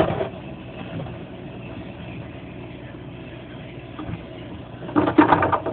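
Steady low hum of a refrigerator running, with a short, louder burst of sound about five seconds in.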